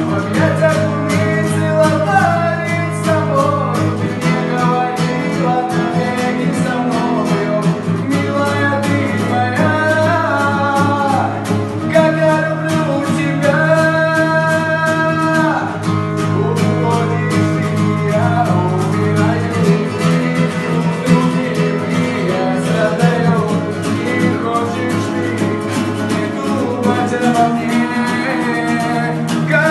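Voice singing a Russian-language pop song over strummed guitar chords, holding one long note about halfway through.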